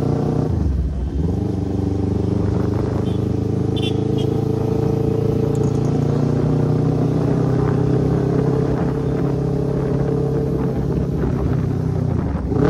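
Kawasaki Ninja 300's parallel-twin engine running through a loud exhaust, holding a steady note while being ridden. The note dips briefly about half a second in, then steadies, and falls in pitch near the end.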